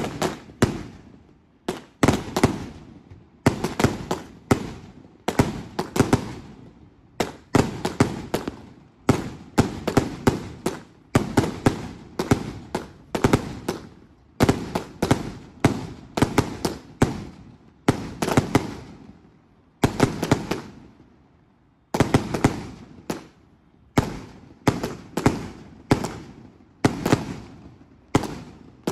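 Fireworks going off in quick succession: clusters of sharp bangs every second or two, each cluster dying away before the next, with a couple of brief lulls near the end.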